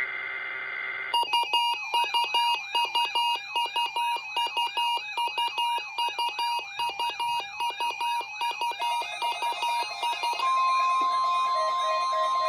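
Weather radio alert for a Required Weekly Test. A brief burst of data tones gives way to a rapid electronic warble, about three rises and falls a second, and about ten seconds in a single steady tone, the NOAA warning alarm tone, takes over.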